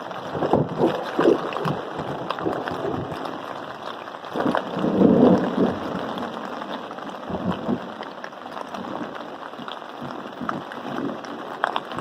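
Thunderstorm rain and wind on a tent at night: a steady noise of rain with scattered drop ticks, swelling louder for a moment about four to six seconds in.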